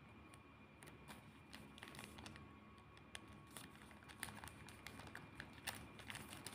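Faint, scattered small clicks and crinkles of hands handling a sticker and paper packing materials close to the microphone.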